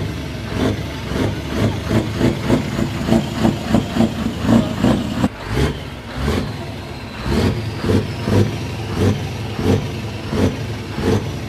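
Scania R620 truck's V8 diesel engine being revved in quick repeated blips, about one or two a second, over its running note.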